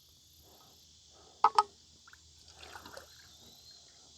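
Water sloshing and trickling faintly in a container, with two sharp clicks in quick succession about a second and a half in.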